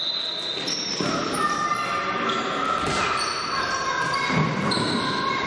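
Basketball game in a sports hall: sneakers squeaking on the court in many short high squeaks, with the ball bouncing on the floor a couple of times.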